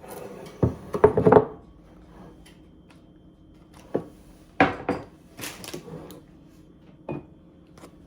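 Kitchenware being handled on a counter: a bowl and cutting board knocking and clattering in a series of separate clunks, loudest about a second in.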